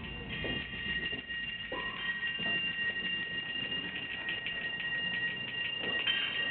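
Suspended metal objects struck by hand, ringing with two high, sustained tones, joined about 4 seconds in by a quick run of light metallic taps and jingles.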